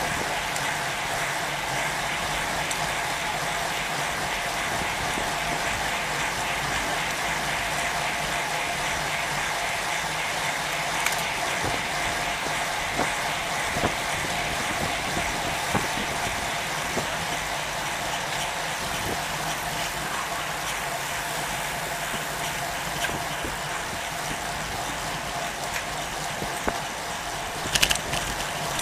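Steady wind and road noise from a road bike riding in a group of cyclists, with a constant hum and a few scattered clicks. A short, louder rustle comes near the end.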